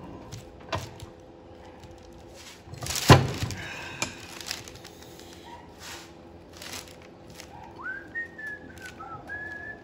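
The greased steel slide of a Morgan swivel jaw vise's movable jaw is pushed into the cast vise body, with light metal clicks and one loud thunk about three seconds in. Near the end a man whistles a few notes, stepping up and down in pitch.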